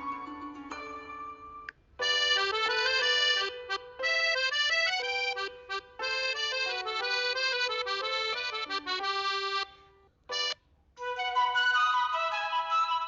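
Huawei phone ringtone melodies playing: short, bright electronic tunes that stop and restart, with brief pauses about two seconds in and again about ten seconds in.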